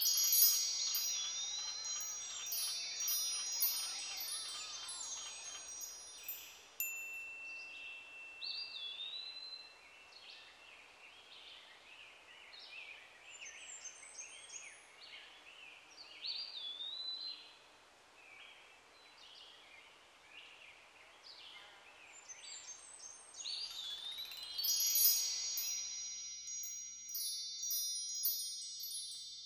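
Wind chimes tinkling, thickest at the start and again near the end, with high birdlike chirps recurring in between over a soft background hiss that drops out shortly before the end.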